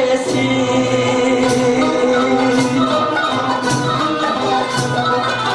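Turkish classical music ensemble playing a held, wavering melody over a percussion beat that strikes a little more than once a second.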